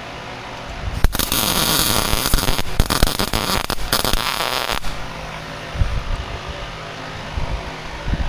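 Electric arc welding: a dense crackle lasting almost four seconds, starting about a second in, with a few short breaks as the arc stops and restarts.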